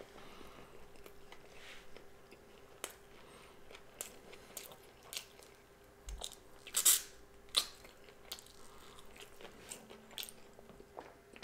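Close-miked eating: a person chewing and biting food with soft, wet mouth clicks, and two louder bites a little past halfway.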